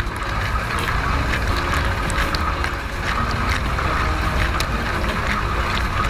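Miele dishwasher wash cycle heard from inside the tub: a steady rush of spraying, splashing water with a low rumble underneath and scattered sharp ticks.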